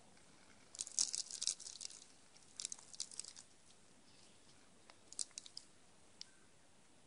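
Eastern gray squirrel crunching bird seed close to the microphone. The sound comes in three bouts of quick, sharp crunches and clicks; the first, about a second in, is the loudest.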